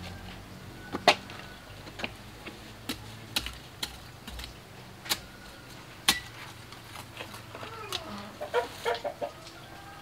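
Sharp, separate clicks of a small hand trowel knocking into soil while seedlings are planted, about one a second. Near the end, a hen clucks in a quick run of short calls.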